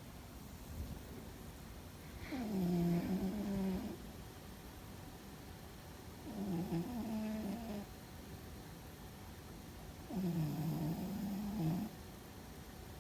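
A sleeping cat snoring loudly. Three drawn-out, pitched snores come about four seconds apart, each lasting about a second and a half and dipping in pitch as it starts.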